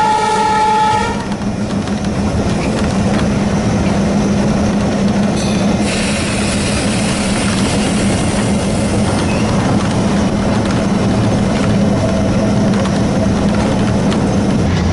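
A WDG-3A Alco diesel locomotive's horn sounds and cuts off about a second in. Then the locomotive's 16-cylinder ALCO 251 engine chugs steadily under load as the train runs along the track.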